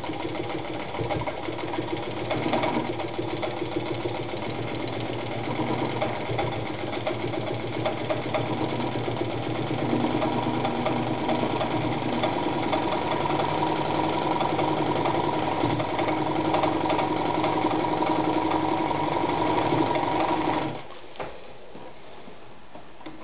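Adler Matic 153A sewing machine running steadily, stitching through a layer of thin denim without trouble. It gets a little louder about halfway through and stops abruptly near the end.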